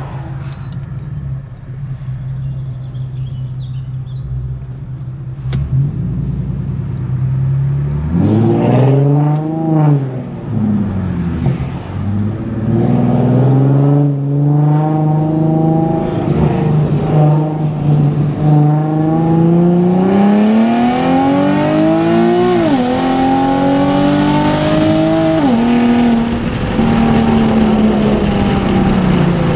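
Nissan 370Z's VQ37 V6 through a Tomei aftermarket exhaust, heard from inside the cabin. It runs steadily at first, revs up and back down about eight seconds in, then pulls hard with a long rising pitch. The pitch drops sharply at two upshifts a few seconds apart and then holds steady near the end.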